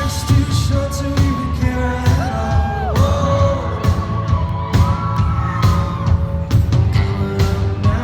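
Live band music with a drum beat and heavy bass, a singer's held, sliding notes, and whoops from the audience.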